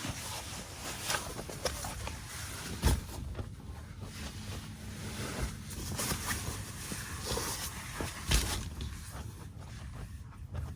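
Rustling and handling noises with scattered small clicks and two louder knocks, one about three seconds in and one about eight seconds in.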